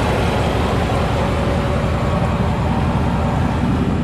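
1995 Chevy Silverado C2500's 5.7-litre V8 running in gear with the wheels off the ground and the driveshaft spinning under it: a steady drone of engine and drivetrain. The truck is in four-wheel-drive high, with the transfer case sending power but the front wheels not turning.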